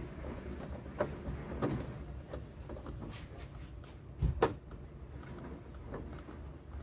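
A TV's plastic frame and panel being handled: a few light knocks and clicks, the loudest pair about four seconds in, over a low steady background hum.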